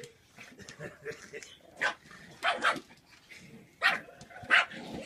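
A dog barking: several short, sharp barks, starting about two seconds in, with quieter rustling between them.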